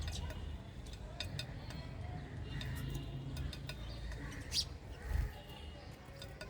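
Small birds chirping in many short, sharp notes over a steady low rumble.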